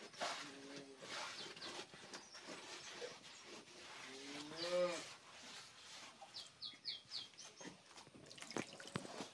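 Cow mooing: a short call near the start and a longer one about four to five seconds in, its pitch rising and then falling.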